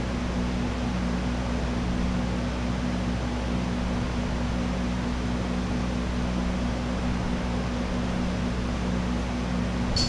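Steady low machine hum with an even hiss, like a running fan or motor, and one short click near the end.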